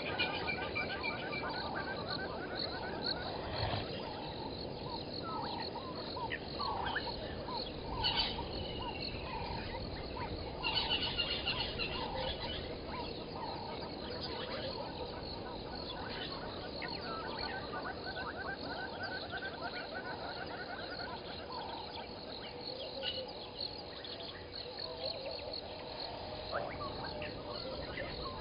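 A chorus of frogs calling, short calls repeated rapidly, with birds chirping over it and a louder cluster of high bird chirps about eleven seconds in.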